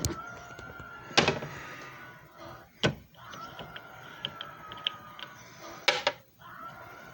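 JFJ Easy Pro disc repair machine running with a steady, slightly falling whine, broken three times by sharp clunks of handling.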